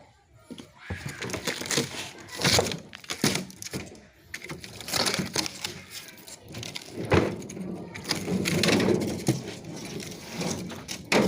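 Irregular knocks, clatter and scraping of metal parts as a scrapped refrigerator is broken apart by hand, with several sharp blows standing out.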